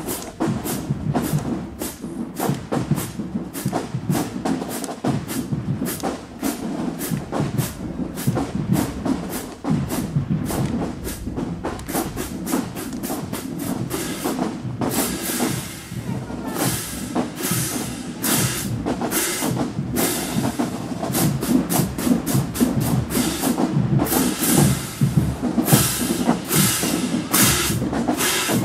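HBCU marching band drumline playing a marching cadence: rapid, crisp drum strokes over low drums. The sound grows brighter and fuller about halfway through.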